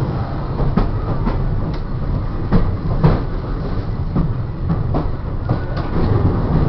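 Interior of a vintage trolley car running along the rails: a steady low rumble, with irregular knocks and clacks from the wheels on the track.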